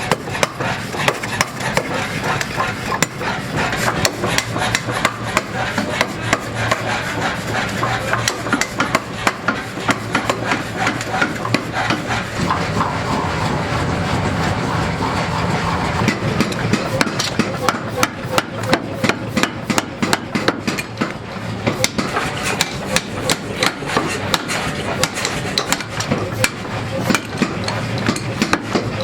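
Hammer blows striking metal in a fast, continuous run of strikes, over a steady background of workshop noise.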